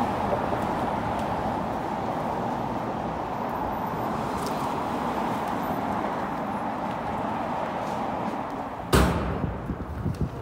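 Steady city street traffic noise from passing cars. About nine seconds in there is one sharp, loud thump, after which the traffic sounds quieter.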